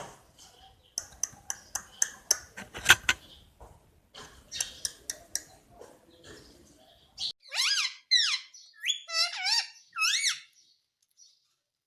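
Indian ringneck parakeet chirping: a run of short, sharp clicky chirps, then about six loud whistled chirps that sweep up and down in pitch in the second half.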